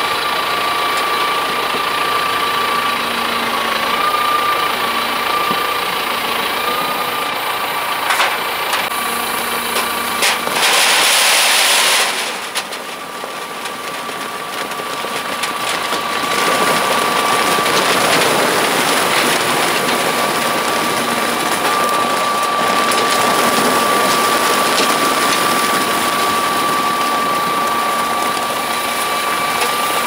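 Potato harvester running while it unloads potatoes into a crate: a steady machine drone with rapid small clatter and a steady high whine. A louder rushing noise comes briefly about ten seconds in, then the sound drops for a few seconds before it steadies again.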